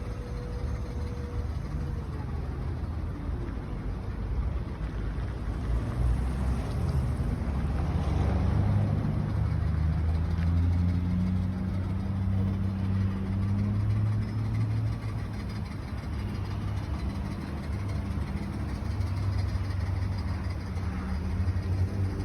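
BMW E38's engine running, its low note swelling and easing a few times with the throttle, with the extraneous noise that the owner puts down to a manifold needing replacement.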